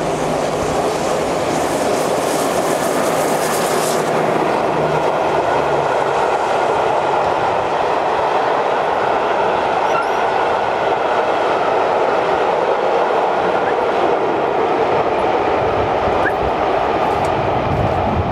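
Steam locomotive 60163 Tornado, an LNER Peppercorn A1 Pacific, passing with its train: a high hiss as the engine goes by in the first few seconds, then the steady rumble of the coaches' wheels on the rails as they roll past.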